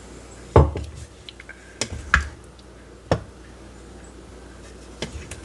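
Wooden spatula stirring and poking chicken and dumplings in a stainless-steel Instant Pot inner pot: about six sharp knocks of wood against the metal pot, the loudest about half a second in.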